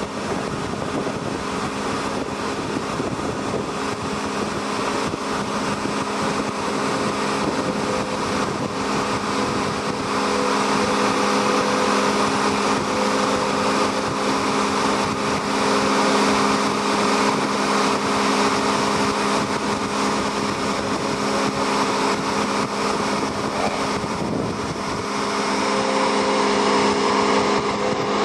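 An engine running steadily, a constant droning hum that grows a little louder about ten seconds in.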